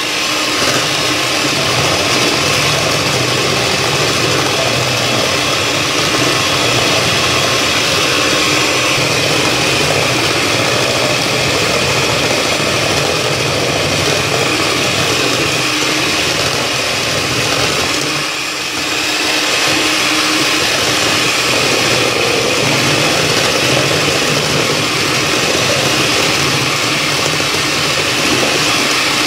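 Hand-held electric mixer running steadily, its twin beaters whipping thin pandan cake batter in a stainless steel bowl, with a brief dip in its sound about two-thirds of the way through.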